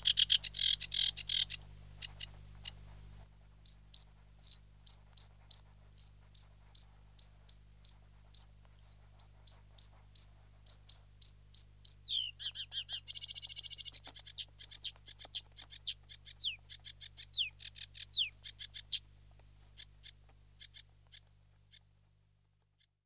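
Ducklings peeping: a long run of short, high, falling peeps, crowded at first and then about two a second, with a buzzy trill about halfway through. The peeps thin out near the end.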